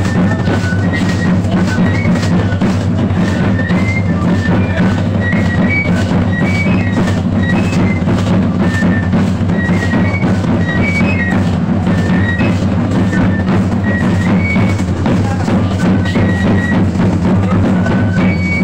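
Traditional drum-and-flute dance music: a flute plays a melody of short high notes over a fast, steady hand-drum beat.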